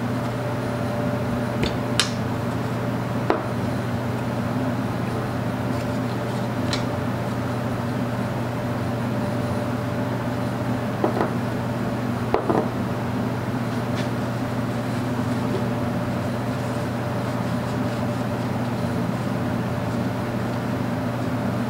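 A steady low hum, with about six light metallic clinks and taps scattered through as the small steel parts of an overdrive's hydraulic pistons and springs are pulled out and handled.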